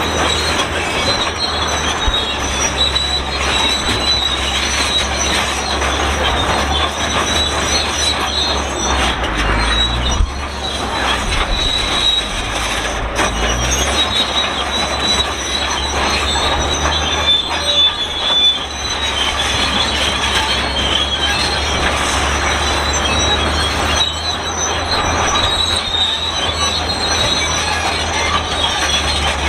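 Shantui SD32 crawler bulldozer squealing and creaking loudly and continuously as it works, over the steady low run of its turbocharged diesel engine; the squeal is likened to an unlubricated cart, a sign of dry, worn metal parts on an old machine.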